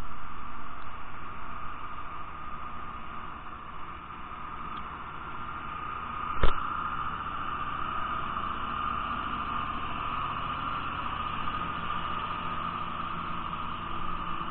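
Iveco fire tanker's diesel engine running as the truck drives slowly closer, with a steady hiss of water spraying onto the road surface from its front. A single sharp thump about six and a half seconds in.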